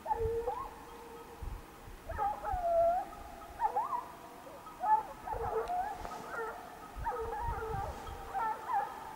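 Hunting hounds baying, several voices overlapping in drawn-out, bending calls repeated through the whole stretch, as they work the scent trail of a wild boar.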